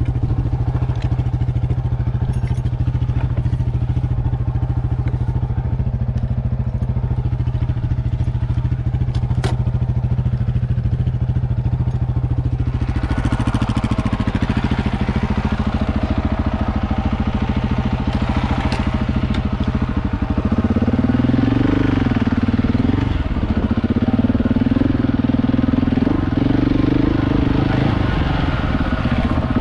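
KTM 690 Enduro's single-cylinder engine running at a steady speed. About halfway through a rushing noise comes in, and near the end the engine note rises and dips several times and gets a little louder.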